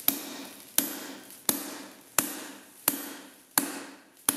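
Hand hammer striking a hot punch held in a tong-style holder, driving it into a red-hot square steel bar on the anvil. There are seven evenly spaced blows, about one every 0.7 seconds, each a sharp metallic strike that rings away briefly.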